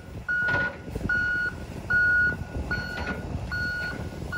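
Wheel loader's reversing alarm beeping at an even pace, about one short high beep every 0.8 s, six in all, over the low running of its diesel engine.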